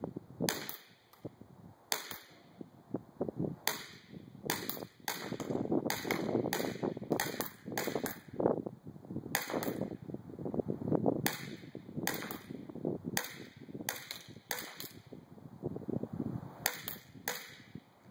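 Airsoft pistol firing BBs, about two dozen sharp cracks in irregular runs of two to four shots fired in quick succession, with short pauses between runs.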